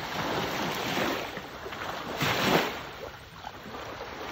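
Wind buffeting the phone's microphone over water lapping and sloshing around someone wading, swelling in gusts and loudest about two seconds in.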